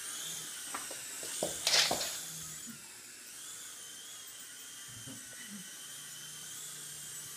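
Traxxas DR1 coaxial RC helicopter's electric motors and twin rotors whining steadily at a high pitch in flight. About two seconds in, a short loud burst of noise stands out over the whine.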